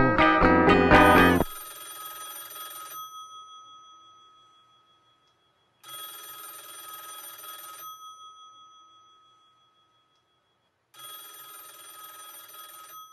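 The song's music stops about a second and a half in. A telephone bell then rings three times, each ring a rapid metallic trill of about two seconds that fades away, the rings about four to five seconds apart.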